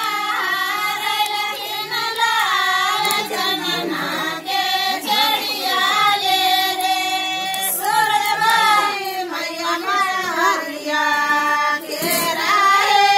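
A group of women singing a Chhath devotional folk song (Chhath geet), in phrases with short breaks between them.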